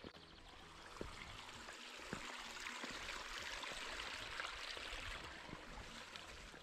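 Small hill stream running over stones, a steady rushing trickle that grows louder to a peak about four to five seconds in and then eases a little, with a few soft footsteps on stony ground.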